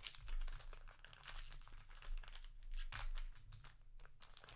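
Plastic trading-card booster pack wrapper being torn open and crinkled, with irregular crackling rustles, over a low steady hum.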